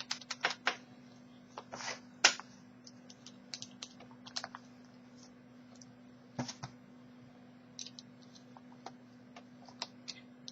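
Irregular light metallic clicks and scrapes of two tension wrenches working the pins of a Kasp dimple-key bike lock, busiest in the first couple of seconds and thinning to occasional ticks. A faint steady hum sits underneath.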